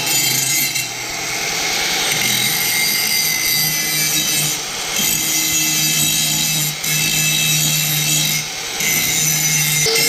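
Electric angle grinder with a coarse grinding disc running at full speed against a steel shovel blade, grinding the edge into shape: a steady motor hum under a harsh grinding rasp. The sound eases briefly about four times as the disc comes off the metal.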